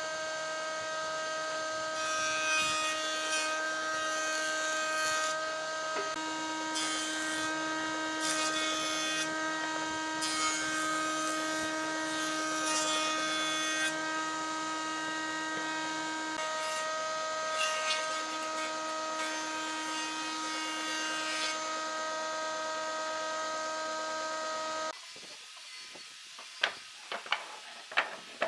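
Electric power tool running at a steady whine while it works wood, with repeated rasping stretches as it bites into the wood. It shuts off suddenly near the end, followed by a few sharp knocks.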